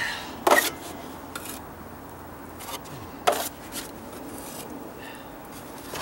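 Metal taping knife scraping patching compound against a mud pan and across a wooden step. It makes a string of short scrapes, with two sharper, louder ones about half a second in and just after three seconds.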